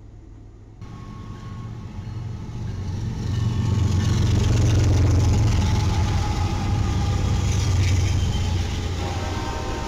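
BNSF diesel-electric freight locomotives passing close by under power, their engines making a steady low hum that builds to its loudest around the middle as the units go past, then eases as the train follows.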